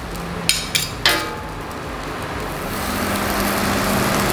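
Capcay stir-frying in a stainless-steel wok: a metal spatula and ladle clink against the wok three times in the first second or so, then a steady sizzle over a low steady hum that grows louder.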